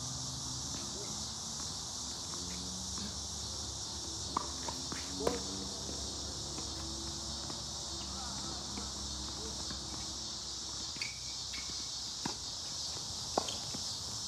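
A steady high buzz from a chorus of insects, with a few sharp pops of a tennis ball struck by rackets, two of them a second apart about four seconds in and two more near the end.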